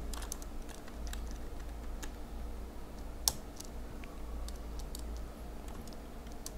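Keystrokes on a computer keyboard: a sparse scatter of soft clicks, with one sharper click about three seconds in.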